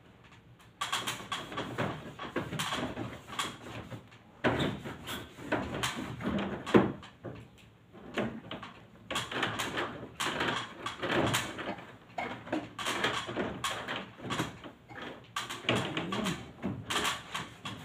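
Irregular clicks, knocks and rustling from hands working at the plastic casing and drain port of a wall-mounted split-type air conditioner's indoor unit, with a cloth held against it.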